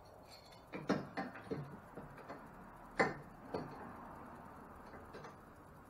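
A string of knocks and clicks as a clamp and a metal jack plate are handled and fitted against a boat's transom, the sharpest about a second in and about three seconds in, then settling down.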